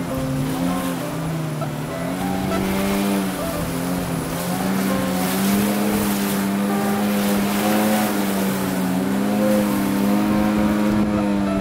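Outboard motor of a wooden longboat running under way, its pitch dipping and rising a couple of times as the revs change and holding steady in between, over the rush of river rapids.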